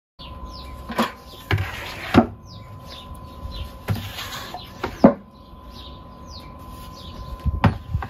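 Wooden knocks and clatter as chunky pine bed slats are handled and set down, about half a dozen sharp strikes spread through the moment. Small birds chirp in the background.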